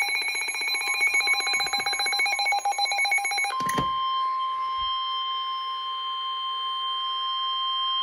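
Weather alert radios sound their alarms in a fast, pulsing beep, which cuts off with a click about three and a half seconds in. A single steady tone follows: the 1050 Hz NOAA Weather Radio warning alarm tone that comes before a flood warning is read.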